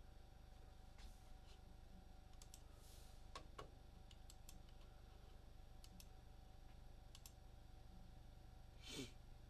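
Faint, scattered clicks of a computer mouse and keyboard, a few at a time with pauses between, and a slightly louder knock near the end.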